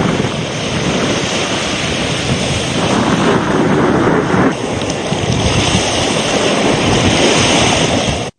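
Wind buffeting the microphone, with sea waves washing onto the shore. A steady rushing noise that shifts slightly a few times.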